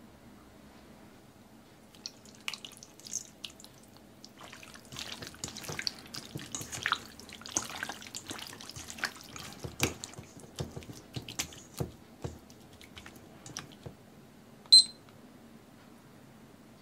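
Raw chicken thigh pieces kneaded by hand with sauce in a stainless steel bowl: irregular squelching and slapping, starting about two seconds in and going on for about twelve seconds. Near the end, a single short electronic beep from a digital kitchen timer being started for the ten-minute marinade.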